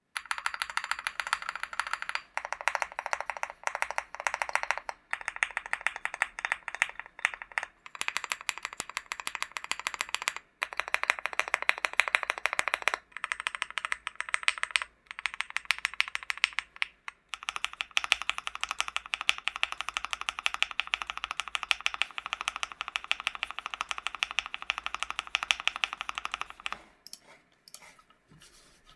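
Fast continuous typing on a LEOBOG Hi75 mechanical keyboard with Gateron G Pro 3.0 Yellow linear switches, the keystrokes clacking in quick runs of a few seconds broken by brief pauses. Near the end the typing thins out to a few scattered keystrokes.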